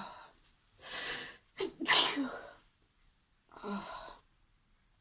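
A woman sneezing in a fit of repeated sneezes: a breathy build-up about a second in, then one loud, sharp sneeze about two seconds in, and a shorter breathy sound near the end.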